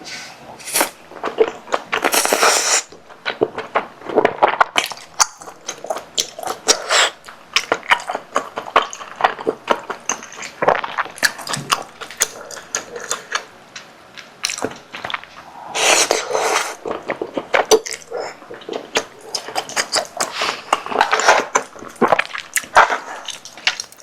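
Close-miked eating sounds of spicy tteokbokki with sausage and cabbage: a steady run of chewing and mouth clicks, broken by two longer, louder noisy bursts about two seconds in and again about sixteen seconds in.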